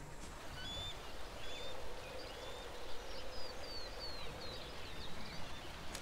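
Forest ambience: birds chirping, a series of short whistled calls over a steady background hiss.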